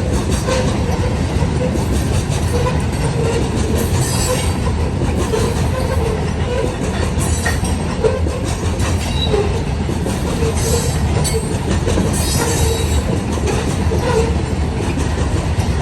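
Loaded freight cars of a CSX train rolling past: a steady rumble of steel wheels on rail with short, repeated wheel squeals and brief high screeches now and then.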